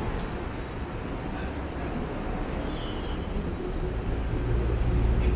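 City street traffic noise, with a deep low rumble that swells near the end as a heavy vehicle passes.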